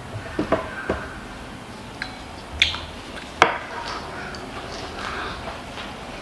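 Wooden chopsticks tapping and clinking against a glass soup bowl and dish while eating, a handful of sharp irregular clicks with the loudest about three and a half seconds in.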